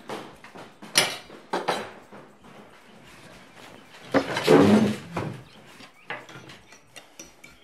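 Cutlery clicking and scraping against plates at a meal table: sharp clicks about a second in and again shortly after, a louder, longer sound of about a second around four seconds in, then light ticks.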